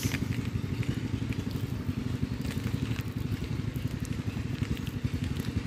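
Water poured from a plastic bottle, splashing onto hands and the ground in a light patter, over a steady low rumble.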